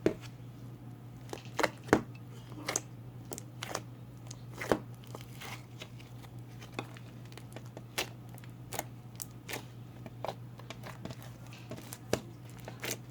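Homemade slime being squished and pressed by hand for ASMR, making irregular sticky clicks and pops, roughly one a second, over a low steady hum.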